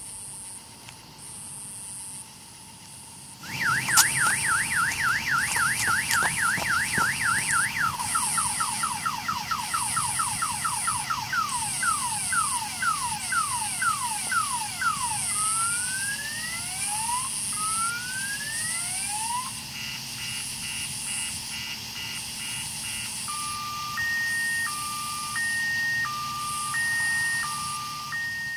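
A Viper boat security alarm siren goes off about three and a half seconds in, set off by someone tampering with the boat. It cycles through its tones: a fast warble, a run of falling sweeps, then rising whoops, quick chirps, and finally a slow two-tone hi-lo.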